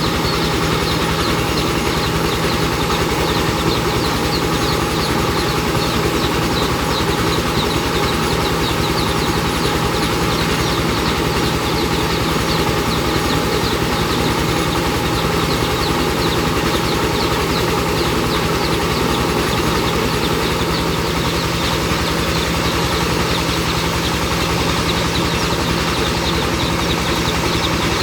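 Rice milling machine running steadily, a constant loud mechanical drone with an even hum.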